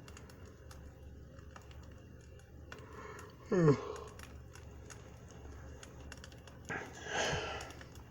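Campfire crackling, with fine irregular pops over a low steady rumble. About three and a half seconds in, a man's voice gives a short sigh that falls in pitch, the loudest sound. Near the end comes a long breathy exhale.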